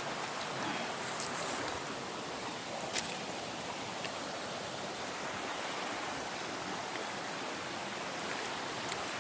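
Steady rush of flowing water, with a single sharp click about three seconds in.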